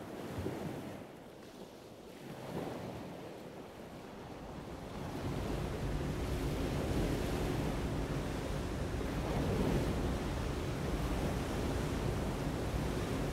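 Steady rushing noise like surf or wind, growing louder about five seconds in, with a faint steady hum underneath.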